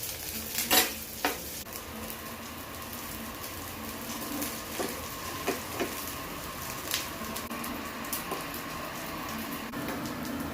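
Breaded vegetable kebabs shallow-frying in coconut oil in a pan, sizzling and crackling steadily. A few sharp clinks of a utensil against the pan, the loudest about a second in.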